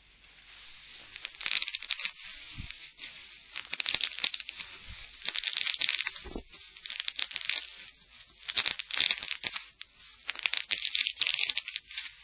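Packaging on a large cardboard shipping box being torn open and crinkled, in several rustling, crackling bouts with short pauses between.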